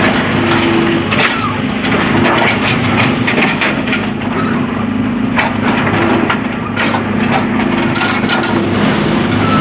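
A digger's diesel engine running steadily under many irregular cracking and crunching sounds, like material breaking as it is dug or loaded.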